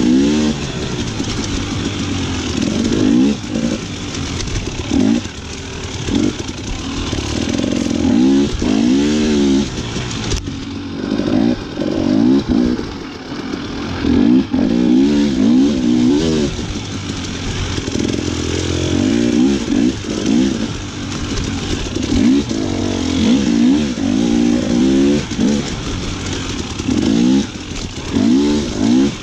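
Dirt bike engine being ridden off-road, its revs rising and falling over and over as the throttle is worked. There is a steady rush of noise throughout, and a sharp knock about ten seconds in.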